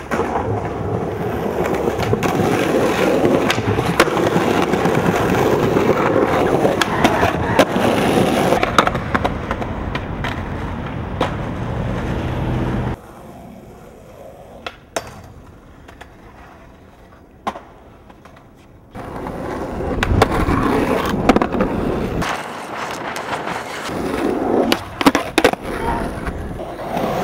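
Skateboard wheels rolling on concrete, with sharp clacks from the board popping and landing on tricks. About 13 seconds in the rolling drops to a quieter stretch with a few isolated clicks. It picks up again loudly about 19 seconds in.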